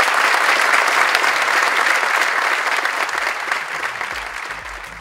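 Audience applauding: dense clapping that fades away near the end.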